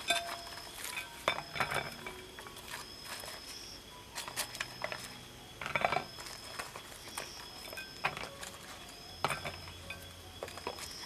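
Green chillies tipped out of a clay pot onto a white plate and shifted about by hand: scattered light taps and clinks on the plate, the loudest about six seconds in. Repeated short high chirps run behind.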